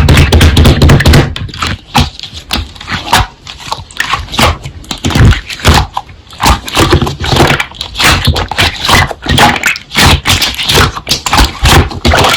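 Slime being squished and pressed by hand, giving a rapid, irregular run of wet clicks and pops.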